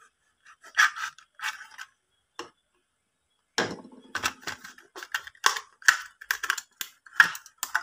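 Plastic blister and card backing of a Hot Wheels package crinkling and tearing as a die-cast car is worked out of it. A few sharp crackles at first, then a dense run of them from about halfway.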